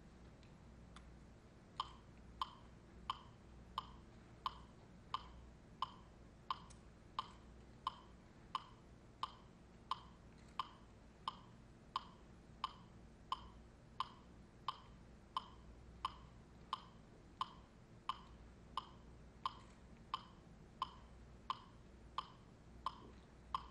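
A steady percussion beat of short, sharp, pitched knocks, about three every two seconds, starting about two seconds in.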